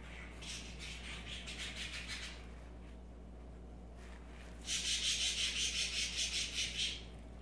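A plastic plant pot scraping and rubbing on a speckled stone countertop as it is turned by hand, in two spells of quick gritty strokes, about four a second; the second spell, past the middle, is louder.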